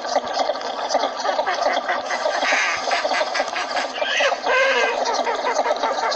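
A flock of northern shoveler ducks calling, many quacks and calls overlapping in a continuous chatter.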